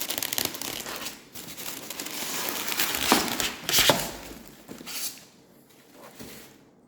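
Parcel packaging being crinkled and torn open by hand, a dense crackling with sharp snaps, loudest about three to four seconds in and dying down over the last couple of seconds.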